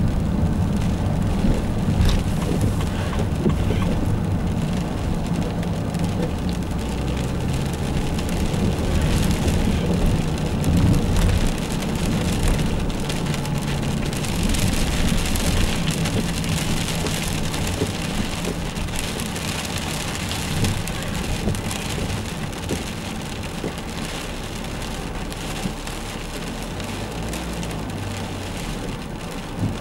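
Diesel van driving, heard from inside the cab: a low engine drone under a steady hiss of road noise.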